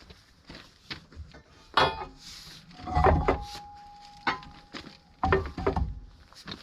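Irregular metal clanks and knocks, a dozen or so, from tools and parts being handled, with a thin steady tone through the middle.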